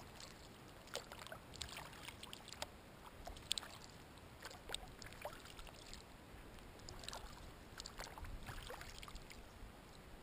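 Faint splashes and drips of a kayak paddle dipping into calm water, coming in small clusters every second or two.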